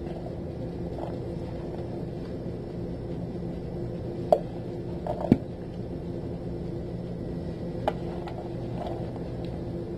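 Rice being spooned from a plastic container into a glass baking dish: three light taps and knocks of the spoon and container, about four and five seconds in and again near eight seconds, over a steady low hum.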